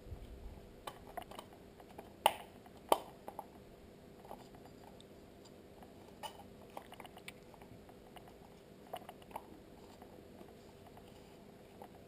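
Small clicks and taps of an IP camera's plastic parts being handled and fitted together, with two sharper clicks a little over two seconds in and again about half a second later.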